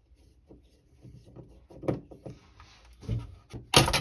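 Screwdriver backing out the screws of a GFCI outlet's cover plate: faint scraping and small clicks, with a few louder sharp clicks near the end.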